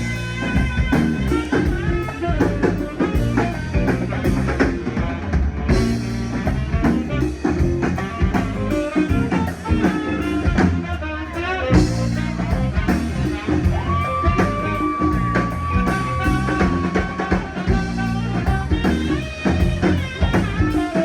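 A live rock band plays an instrumental passage with no singing, its drums keeping a steady beat. Past the middle, a single high note is held for about three seconds.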